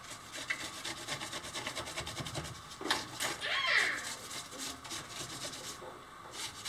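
Rapid, repeated scraping strokes of a hand and a trowel rubbing over a rough cement-coated concrete block. About three seconds in comes a brief, louder, gliding voice-like call.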